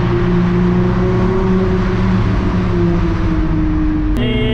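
Engine of a VR6-swapped Mk3 Volkswagen droning at steady cruise, heard from inside the cabin over tyre and road noise, its pitch sinking slowly. About four seconds in, the sound changes abruptly to a different steady engine note with a higher whine on top.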